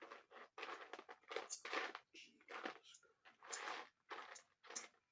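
Crinkling and rustling of plastic as someone rummages through packaging and small plastic action-figure accessories, in irregular bursts about twice a second.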